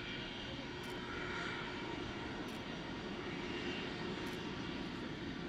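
Boeing 747-400 freighter's four turbofan engines running steadily, a continuous jet rumble with a faint whine through it.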